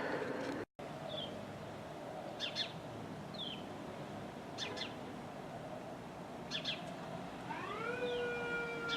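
Birds chirp a few short times. About seven and a half seconds in, a siren winds up in pitch and settles into a steady, sustained tone. There is a brief dropout to silence just under a second in.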